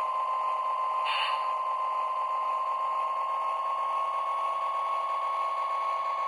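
Lionel LionChief Plus GP-7 O-gauge locomotive's electric can motors and drive running at the lowest speed setting, giving a steady high whine; the loco is running smoothly, its wheels now seated on the axles. A brief hiss about a second in.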